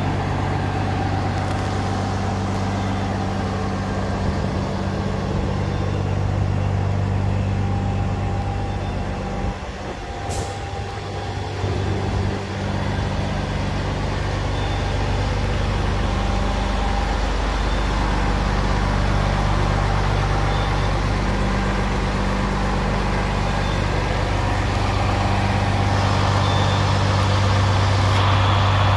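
Renault R340 Major tow truck's six-cylinder diesel engine idling steadily, a little louder near the end.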